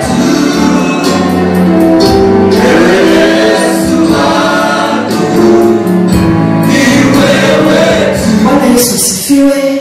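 Gospel praise-and-worship singing: a woman and a man sing into handheld microphones, amplified through the church sound system.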